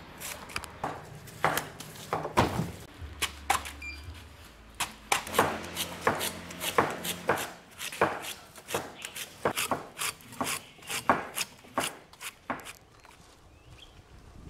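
Knife and machete blades chopping and slicing the skin off pineapples, a quick, irregular run of sharp cuts and knocks against the fruit and a board. The cutting stops about two seconds before the end, and a faint low hum runs under the first half.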